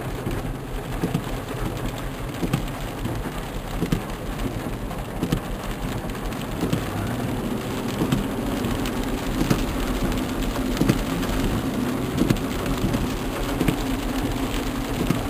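Heavy rain coming down as a steady hiss, with many sharp individual drop hits over a steady low hum.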